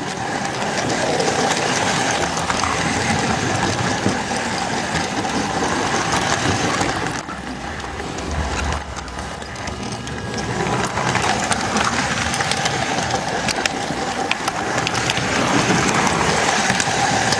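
S-gauge model train running along the track, heard from a camcorder riding on the flat car that a Flyonel Docksider locomotive pushes: a steady motor hum with wheel rumble and scattered clicks over the rail joints. The sound turns briefly quieter and duller about halfway through.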